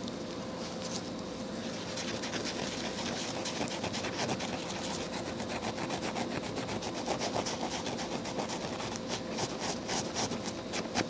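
A small sewing machine thumb screw rubbed back and forth on a Scotch-Brite pad with polishing compound, a rapid scratchy scrubbing. It starts about two seconds in and is strongest near the end.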